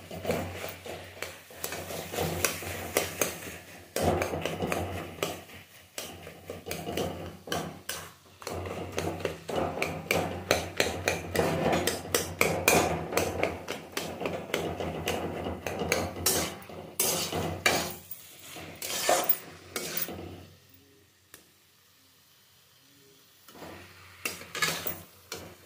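Metal spatula scraping and knocking against a metal kadhai while softened, cooked pumpkin is stirred and lightly mashed, in a dense run of irregular clicks and scrapes. It stops about 20 seconds in, and a short burst of scraping comes near the end.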